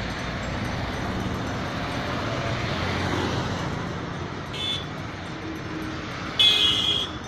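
Road traffic noise, with a motorcycle engine running close by at the start and cars moving in the background. A short vehicle horn beeps about four and a half seconds in, and a louder horn honk, the loudest sound, comes near the end.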